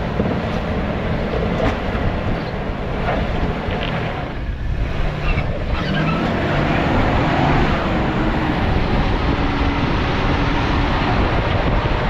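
Off-road 4x4 engine running under load while crawling over rock, getting louder about halfway through as the driver gives it more throttle.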